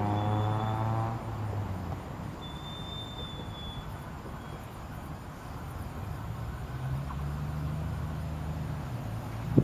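An engine, its pitch climbing, fades out in the first second or two. From about seven seconds in, a low hum grows as a SEPTA Silverliner IV electric commuter train approaches. A brief high chirp comes around three seconds, and a sharp knock right at the end.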